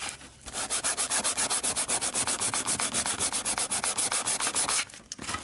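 Sandpaper rubbed by hand over a green plastic NERF blaster shell half in quick, even back-and-forth strokes, about nine a second. It stops a little before the end, sanding the shell down for painting.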